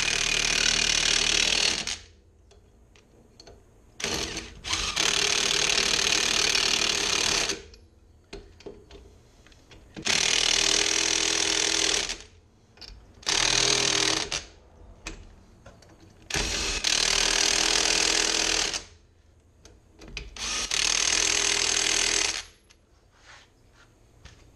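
Impact wrench hammering in six bursts of one to three seconds each, with short pauses between, as it runs new lug nuts down onto a mower wheel's hub studs.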